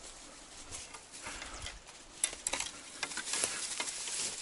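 Long grass and scrub rustling as someone pushes through it on foot, with two sharp clicks a little over two seconds in and louder rustling over the last second or so.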